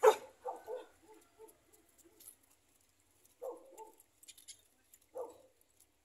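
A dog barking in short bursts: one loud bark at the start, then several quieter barks and yips spread through the rest.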